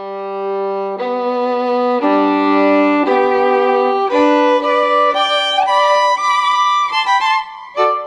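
Background music: a violin playing a melody of held notes, each about a second long, then quicker notes with short slides from about four seconds in.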